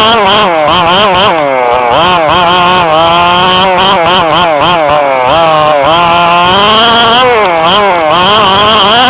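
Radio-controlled car's motor running loud, its pitch rising and falling over and over as the throttle is worked on and off.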